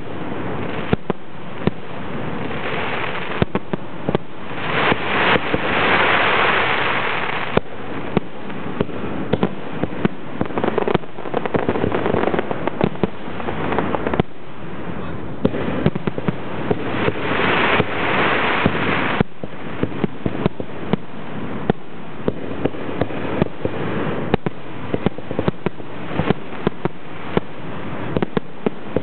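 Aerial fireworks display: a rapid, continuous barrage of shell launches and bursts going off one after another, with two louder stretches of dense hissing crackle about five and seventeen seconds in.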